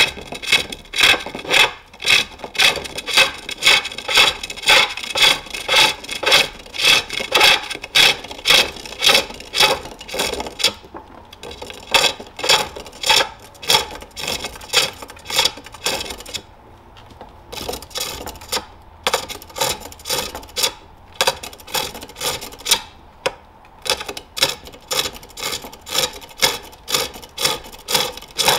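Self-forged hook tool cutting into a jacaranda bowl on a spring pole lathe: a rhythmic scraping cut about twice a second, one cut for each down-stroke of the treadle as the work spins toward the tool, with a few short pauses partway through.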